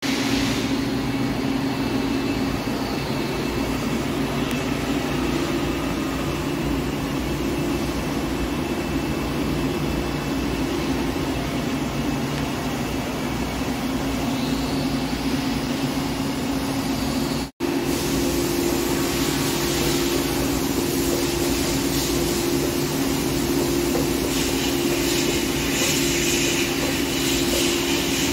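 Heavy-duty Hankook PROTEC-9NC CNC lathe running with a steady hum, as in heavy turning of a steel shaft. A brief break comes about two thirds of the way through, after which the hum sits slightly higher and a rougher hiss joins in.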